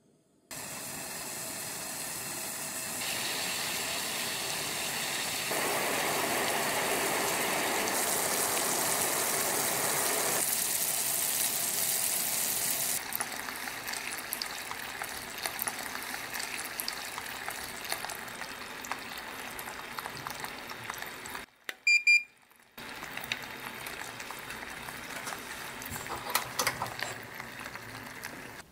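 Sugar syrup heating in an aluminium pot over a gas burner: a steady hiss that builds, then, from about halfway, a quieter boil of many small popping bubbles. A brief beep sounds in a short break partway through.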